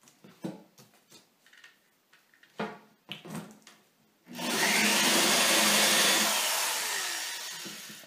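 A few light handling knocks and clicks, then about four seconds in a corded drill with a step bit starts suddenly and runs for about three seconds, its motor whine rising, holding and then falling away as it bores a hole through acrylic sheet.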